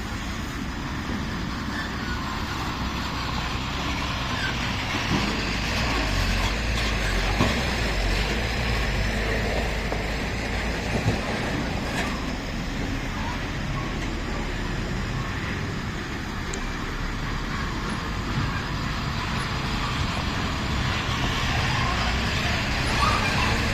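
Heavy truck driving on a rough dirt road: steady engine rumble and road noise that slowly grow louder, with a few short knocks.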